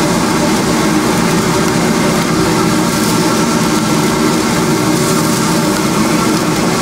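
Loud, steady roar of a high-pressure gas wok burner, running without a break.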